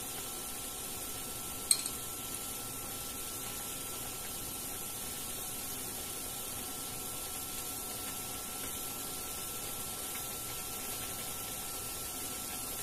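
Steady low kitchen hiss with a faint whine, and one sharp clink of a metal spoon about two seconds in as sauce is spooned into the pan, followed by a lighter tap.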